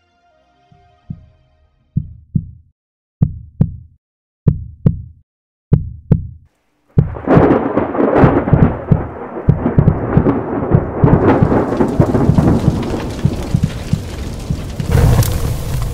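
Sound-effect heartbeat: five low double thumps, lub-dub, a little over a second apart. About seven seconds in, a loud thunder-like rumble with crackling takes over and swells near the end.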